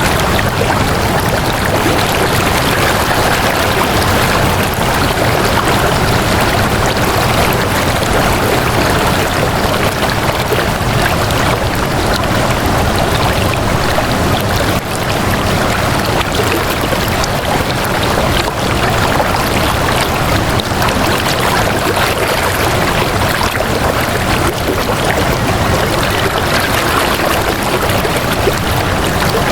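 Flowing water rushing steadily, a continuous stream-like sound that does not change.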